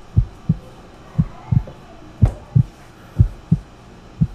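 Heartbeat sound effect: deep, low lub-dub double thumps, about one pair a second, laid in as a suspense cue.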